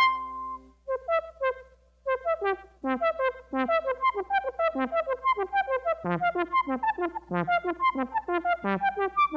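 Expressive E Osmose synthesizer playing a quick melodic run of short pitched notes, each starting with a slight pitch slide. The run thins out briefly about a second in, then carries on.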